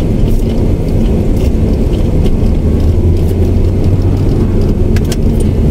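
Steady low rumble of a car driving along a paved road, heard from inside the cabin.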